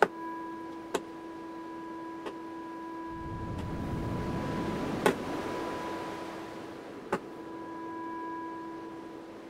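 Arturia MicroFreak synthesizer holding a steady pitched note, with a sharp click at each of about five retriggers. In the middle a wash of noise swells up and fades away, as the velocity-to-attack modulation in the mod matrix is being adjusted.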